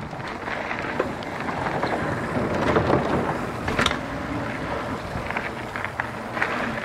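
Mountain bike riding downhill, heard through an action camera's microphone: wind buffeting the mic and the tyres rolling over dirt make a steady rush that builds to its loudest about three seconds in. Sharp clacks from the bike over bumps come about a second in, about four seconds in and again near the end.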